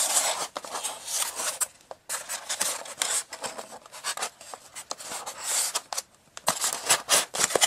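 Plastic packaging scraping, rubbing and clicking against a foam box insert as a boxed model locomotive is pushed and pulled at to work it free. The sound comes in irregular scratchy spells with sharp clicks, pausing briefly about two seconds in and again just after six seconds.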